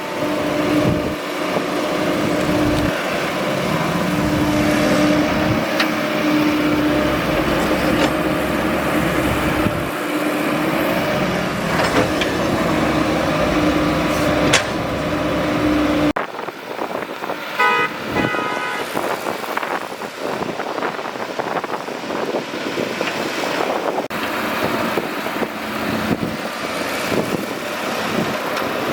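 Excavator's diesel engine running steadily with a droning hum. About halfway through, the sound changes abruptly to a noisier, rattling working sound, and a short run of quick beeps follows soon after.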